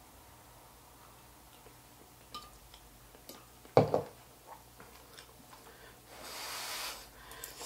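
Eating sounds at a table: small clicks of utensils, then a loud knock about 4 s in as a plastic cup is set down. Just after 6 s, about a second of breathy rushing as hot noodles are blown on to cool them.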